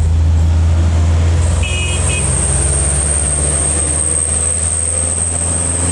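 Diesel engine of a Mitsubishi Fuso Canter light truck running as it approaches and passes close by, a deep steady hum. A short high beep sounds about two seconds in.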